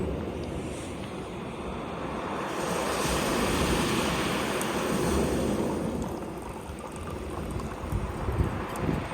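Sea waves washing onto the shore, one swelling up about three seconds in and ebbing away by six, with wind buffeting the microphone.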